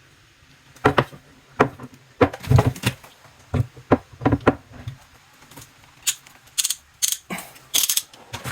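A string of irregular sharp clicks and knocks, starting about a second in, from tools and fittings being handled during plumbing work.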